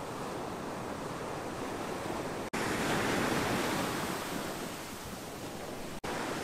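Ocean surf washing onto a beach: a steady rush, with one wave breaking louder just after the sound cuts out briefly about two and a half seconds in, then fading away over a couple of seconds. The sound cuts out briefly again near the end.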